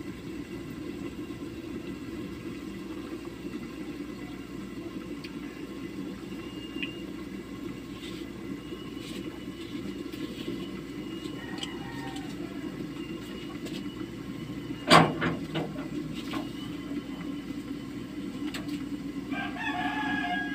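Steady low rumble of the stove under a lidded pan of pork simmering in soy sauce and vinegar. There is a single sharp knock about three quarters of the way through, and a rooster crows near the end.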